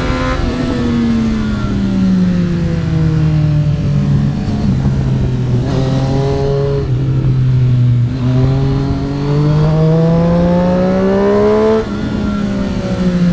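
Triumph Street Triple RS's 765 cc inline three-cylinder engine. Its pitch falls as the bike slows, holds steady for a few seconds, then climbs for about four seconds. There is a brief break in the note near the end, like a gear change.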